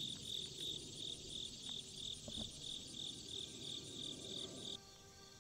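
Crickets chirping in an even rhythm, about three chirps a second, which stops suddenly near the end.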